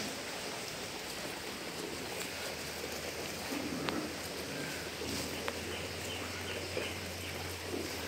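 Sheep eating green fodder at metal troughs: a steady rustling haze with a few faint clicks.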